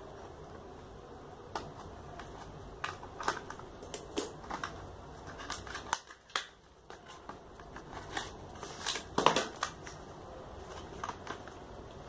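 A cardboard box and plastic clamshell packaging being cut open and handled: irregular crinkles, taps and scrapes, with the loudest cluster about nine seconds in.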